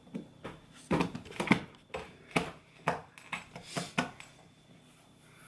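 A quick run of knocks, taps and clatters, about a dozen over four seconds, as things are handled on a kitchen counter, then quieter.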